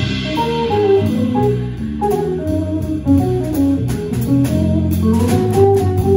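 Jazz guitar trio playing: a hollow-body electric guitar carries a single-note melody line over electric bass notes, with light cymbal and drum strokes from the drum kit.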